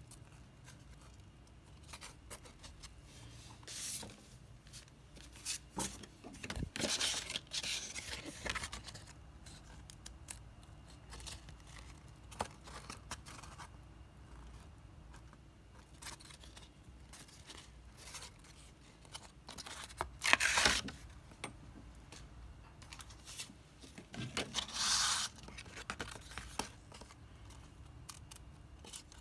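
Stiff glitter cardstock invitation covers being handled: card rustling and scraping against card and the tabletop, with small clicks, in scattered bursts, the loudest about two-thirds of the way in.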